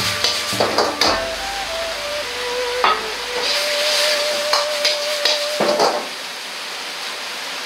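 Food frying in a wok over a high gas flame, with a steady sizzle as a potato-starch slurry thickens the sauce. A ladle stirs and knocks against the wok now and then, most often in the first second and again near 3 and 5.5 s. The sizzle turns a little quieter after about 6 s.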